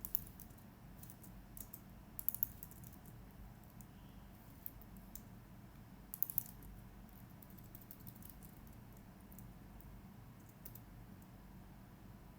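Typing on a computer keyboard in short bursts of key clicks, most of them in the first half, only a few stray clicks later.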